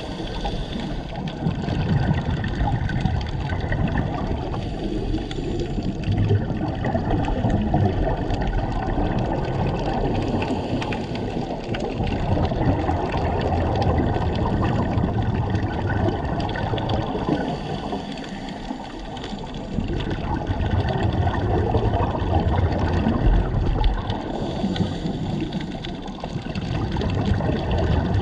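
Underwater ambience picked up on a diver's camera: a muffled, steady rush of water with gurgling scuba exhaust bubbles, swelling and easing every few seconds.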